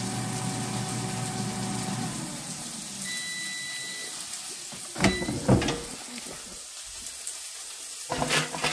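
Air fryer's fan running with a steady hum that shuts off about two seconds in as the cooking timer runs out, followed a second later by one long beep signalling the cook is finished. The basket is then pulled out with a couple of loud clunks, and there are more knocks near the end as it is handled.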